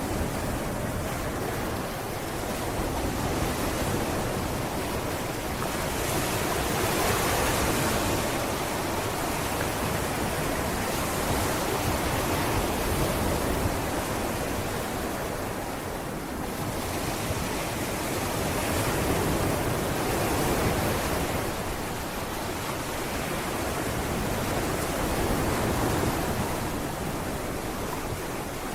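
Sea waves breaking and washing up on a beach: a continuous surf rush that swells and ebbs every few seconds.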